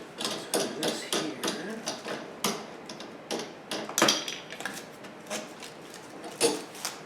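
Irregular clicks, taps and knocks of hard parts being handled and fitted during assembly of a lawnmower, with the loudest knocks about four seconds in and again near the end.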